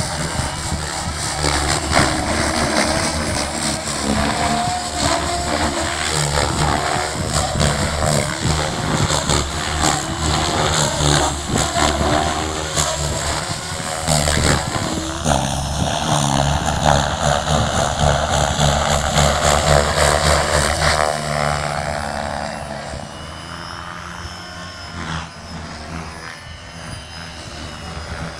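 Electric SAB Goblin 570 RC helicopter flying 3D aerobatics: rotor blades and motor running with a pitch that rises and falls as it manoeuvres. It gets quieter in the last few seconds.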